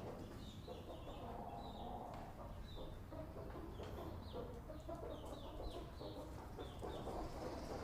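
Chickens clucking, with many short, high, falling chirps among the clucks.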